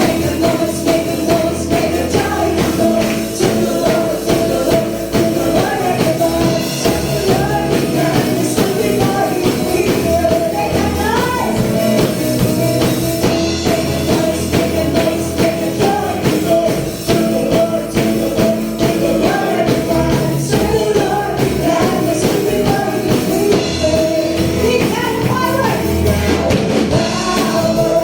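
Up-tempo gospel praise music: voices singing over a band with a steady beat.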